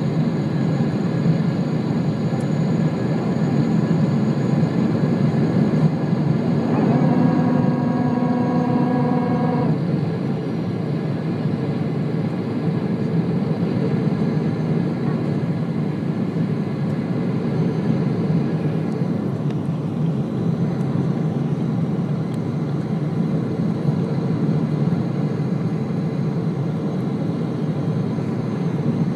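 Boeing 777 cabin noise on descent, heard beside the engine: a steady, dense rush of engine and airflow noise. About seven seconds in, a steady humming tone joins it for about three seconds, then stops.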